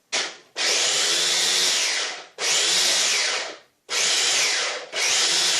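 Food processor motor run in about five short pulses of a second or so each, chopping tomato, garlic, onion and pepper for a sauce.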